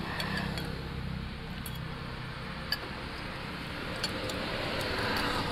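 Metal spoons and forks scraping and clinking now and then against ceramic soup bowls: a few light clicks over steady background noise.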